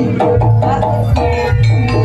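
Live jaranan accompaniment music: a Javanese percussion ensemble with hand-drum strokes under repeating pitched notes and a deep sustained low tone.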